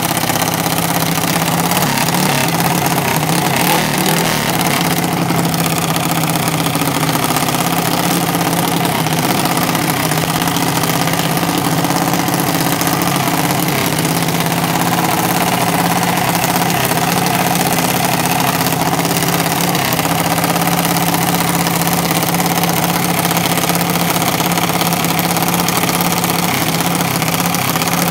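Small dragster's engine idling steadily, at an even pitch with no revving.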